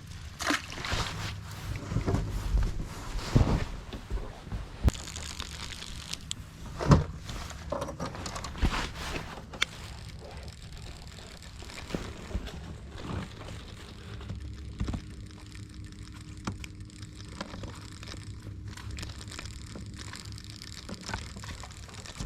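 Irregular knocks, clicks and rustles of handling noise, busiest and loudest in the first ten seconds, then quieter with a faint steady tone in the second half.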